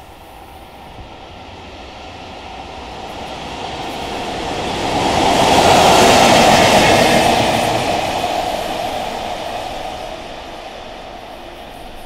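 Two coupled JR EF81 electric locomotives running light pass by at speed. Their wheels and running gear rumble, growing louder as they approach, loudest about six seconds in as they go past, then fading away.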